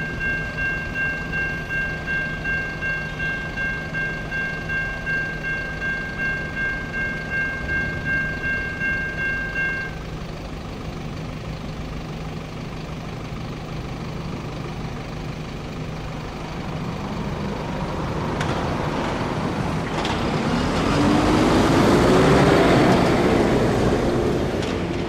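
Siemens electronic crossing bell with the Safetran Type 3 low-tone sound ringing steadily, about two strokes a second, then stopping about ten seconds in as the crossing deactivates and the gates rise. Later a road vehicle drives across, growing louder with its engine rising in pitch, loudest a few seconds before the end.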